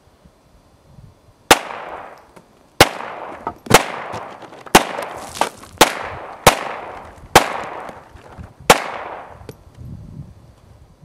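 High Standard HD Military .22 Long Rifle semi-automatic pistol firing eight shots at an uneven pace, roughly a second apart, each crack followed by a fading echo.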